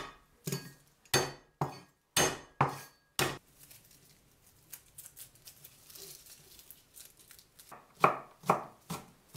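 Garlic cloves being smashed with a cleaver on a wooden chopping board: six sharp whacks in the first three seconds. Then faint small clicks and rustles as the skins are peeled off, and near the end a knife chopping the cloves on the board, about four quick chops.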